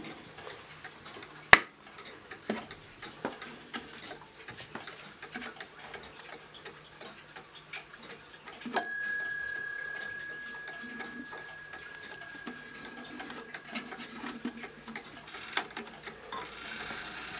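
Antique American 8-day mantel clock ticking, with handling clicks as its bezel and hands are worked, including a sharp click about a second and a half in. About nine seconds in, the striking train sounds a single strike that rings out and fades over several seconds, set off as the hands are turned.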